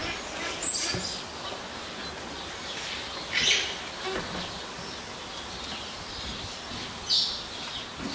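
Three short, high-pitched chirps, the loudest about three and a half seconds in, over a faint steady background hiss.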